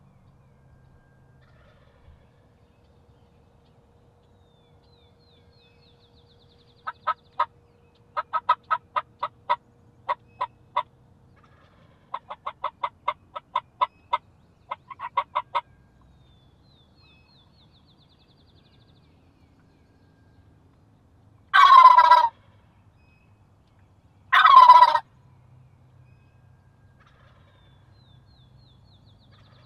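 A turkey call runs a series of short hen-style yelps and cutts for about nine seconds. Then a wild turkey gobbler answers with two loud gobbles, about three seconds apart, each falling in pitch.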